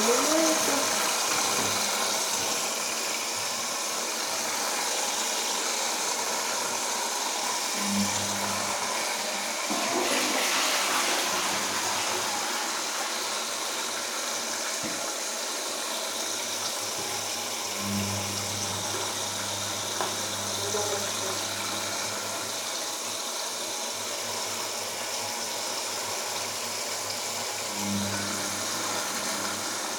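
Samsung P1271 washing machine mid-wash: a steady rush of water, with a low motor hum cutting in about every ten seconds as the drum is turned.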